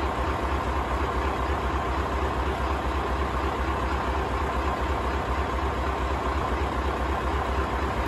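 Scania LBS141's 14-litre V8 diesel engine idling steadily, a low, even rumble.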